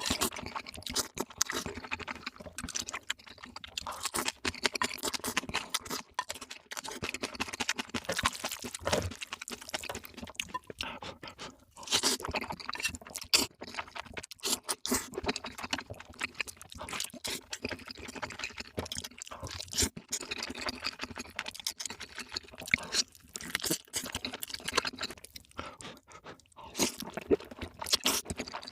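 Close-miked eating sounds: a dense, continuous run of crunching and chewing.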